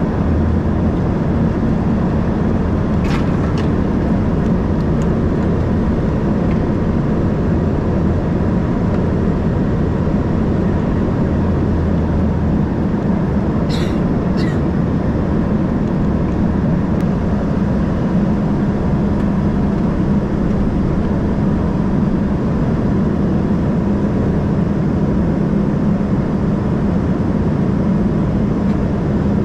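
Steady cabin noise of an Embraer ERJ 145 in flight: its rear-mounted Rolls-Royce AE 3007 turbofans and the airflow make a constant roar with a low hum. A few faint clicks come about three seconds in and again about halfway through.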